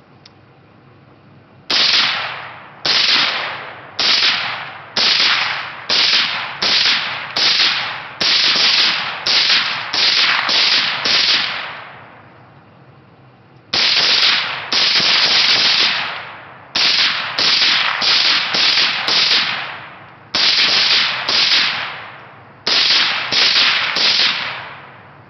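Suppressed AR-15 short-barrelled rifle (11.5-inch barrel, YHM Phantom suppressor) firing about two dozen semi-automatic shots. Each shot is a sharp crack with a brief tail dying away. The shots come in a long steady string about half a second to a second apart, then after a pause of about two seconds resume in shorter quick groups.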